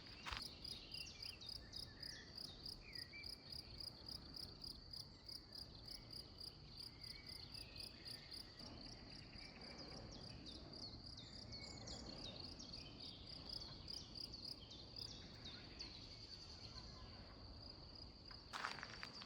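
A cricket chirping steadily in quick, even pulses, with a few faint bird calls now and then.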